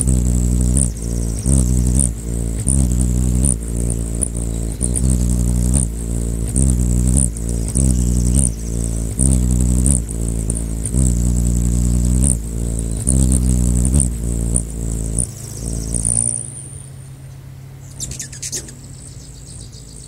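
Hummingbird's wings humming as it hovers: a low drone that swells and fades about once a second, with a thin high tone above it. About four seconds before the end the hum falls away to a faint low drone, and a brief burst of short high chirps follows.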